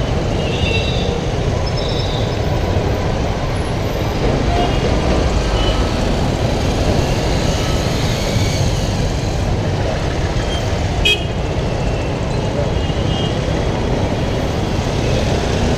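Steady rush of wind and running-engine noise on the microphone of a Bajaj Pulsar 200NS motorcycle riding through city traffic. A few brief vehicle horn toots sound from the surrounding traffic, one about eleven seconds in.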